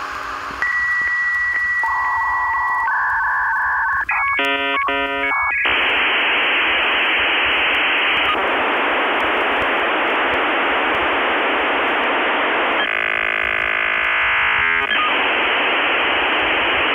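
Dial-up modem handshake, heard over a phone line. A steady high answer tone gives way about four seconds in to a brief warbling of several tones, then a long loud hiss, broken near the end by about two seconds of buzzing tones before the hiss returns.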